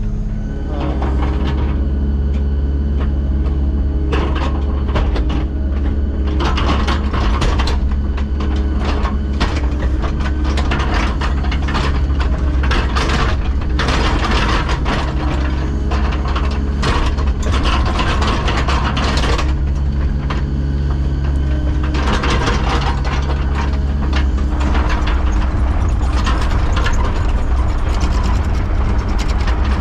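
Diesel engine of a piece of earthmoving equipment running steadily under load, with irregular metallic clanking and rattling as the machine works.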